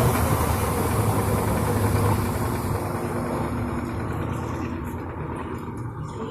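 Electrolux Turbo 10 kg washing machine running: a steady motor hum under a rushing noise, which fades away about halfway through as the level eases down.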